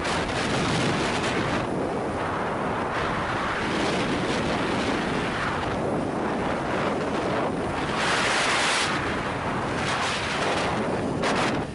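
Wind rushing over the camera microphone on a motorcycle at highway speed, with road and engine noise underneath; the rush swells and eases several times.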